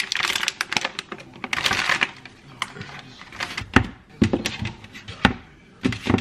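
Crinkling and rustling of a plastic cookie-dough bag being handled and torn open, followed by a few sharp clicks and taps as pieces of dough are set down on a baking sheet.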